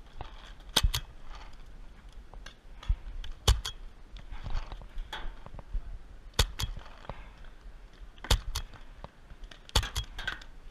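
Paintball markers firing: sharp single cracks and quick pairs, spaced irregularly a couple of seconds apart.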